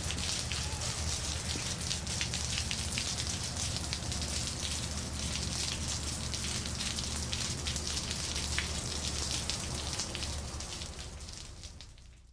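Steady rain falling on asphalt: a dense hiss of many small drop impacts. It fades out over the last couple of seconds.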